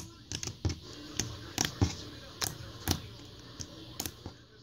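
Pink slime being kneaded, pressed and stretched by hand, giving off irregular sharp clicks and pops, about a dozen of them.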